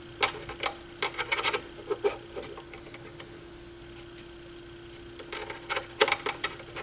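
Small clicks and taps of the Technics SL-1301 turntable's tonearm linkage levers being worked by hand. They come in a quick run at first, pause, and come again in a cluster near the end, over a faint steady hum.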